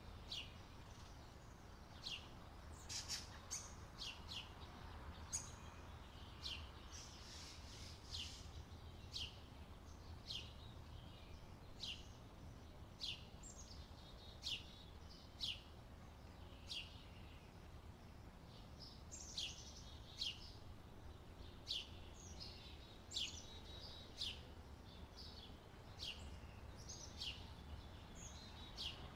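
Birds chirping: short, high, downward-sweeping chirps about once a second, over a faint steady low hum.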